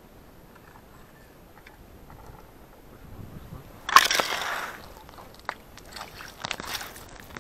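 A pike splashing and thrashing in an ice-fishing hole as it is hauled up by hand on the line, loudest in a sudden burst about four seconds in. Near the end come more splashes and slaps as the fish is pulled out onto the wet ice.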